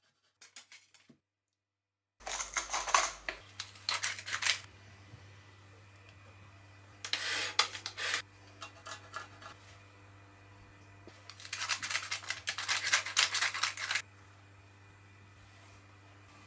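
Cooked potato and egg being grated on a coarse stainless-steel box grater, in three scraping bursts of one to three seconds each.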